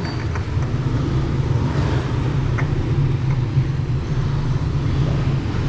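A steady low engine hum, like a vehicle idling, with a couple of faint short clicks.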